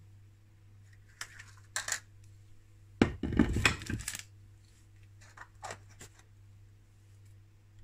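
Steel kitchenware being handled: a few light metallic clinks, a louder rattling clatter about three seconds in, then more clinks, over a faint steady hum.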